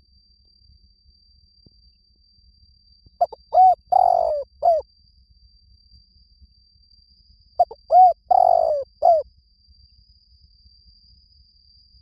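Spotted dove cooing: two calls about four seconds apart, each a quick run of arched coos around a longer, rougher middle note. A steady thin high tone runs underneath.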